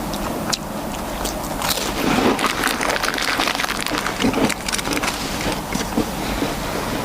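A person chewing a soda cracker that is not very crisp, close to the microphone: a dense run of small crunching crackles, busiest in the middle.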